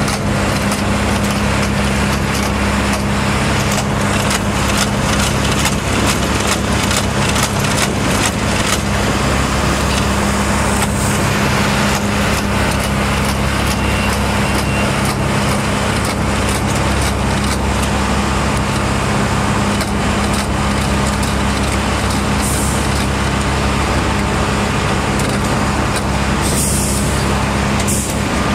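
Engines of railroad maintenance-of-way machines running steadily during tie replacement, with a constant drone and a strong hum, overlaid by repeated sharp metallic knocks and clanks from the machines working on the track.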